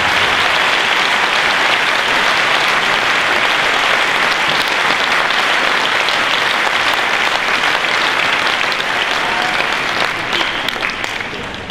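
Audience applauding steadily, a dense crackle of many hands clapping, easing off a little near the end.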